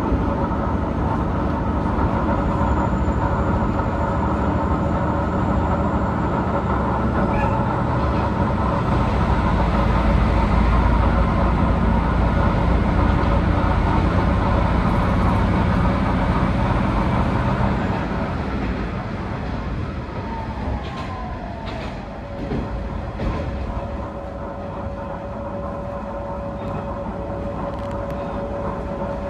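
Engine of a Tenryu Hamanako Railroad diesel railcar, heard on board, running loudly under power. About eighteen seconds in the engine sound drops and a falling tone follows, leaving a steadier, quieter hum.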